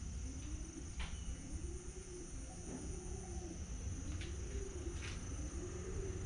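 A few sharp metal clicks as the lever and oil feed of a homemade waste-oil stove are handled. Behind them a low tone rises and falls about once a second.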